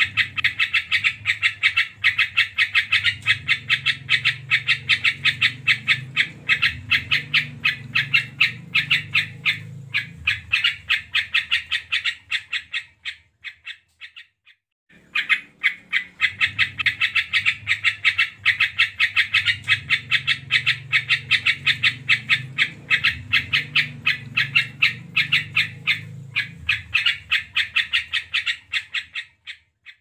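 Caged yellow-vented bulbul singing in long runs of rapid, repeated chattering notes, with a short pause about halfway through.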